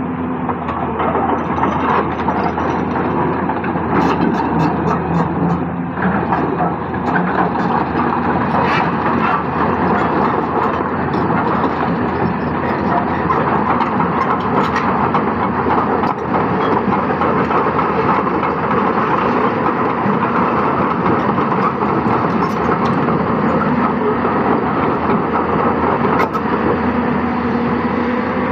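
Hyundai 220-9S hydraulic excavator's diesel engine running steadily under load while it loads rock and sand, with a few sharp knocks about four to nine seconds in.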